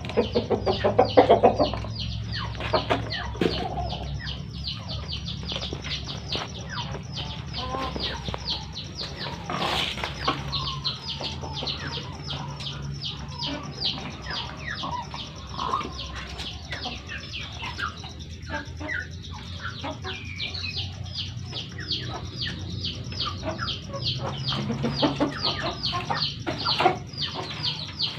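Chickens clucking, with a loud run of clucks about a second in, over a continuous rapid high-pitched chirping of about four chirps a second.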